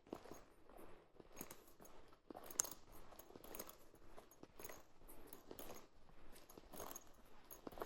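Footsteps, about one step a second, each a short sharp crunch over a faint background.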